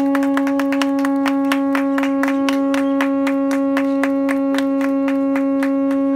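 Conch shell trumpet (Hawaiian pū) blown as one long, steady, unbroken note, with people clapping throughout.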